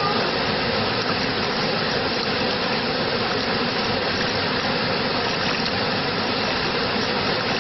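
Steady rushing water, a constant even noise with no breaks or changes.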